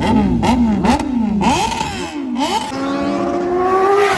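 Superbike engine revved in quick throttle blips, the pitch shooting up and dropping back about twice a second, then held in one long, slowly climbing rev as the bike accelerates.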